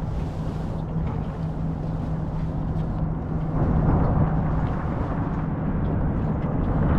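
A boat motor running steadily with a low, even hum, growing louder about three and a half seconds in.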